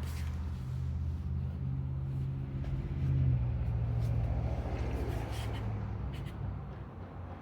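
Motorcycle engine running steadily with a low, even hum. It grows a little louder about three seconds in and fades near the end.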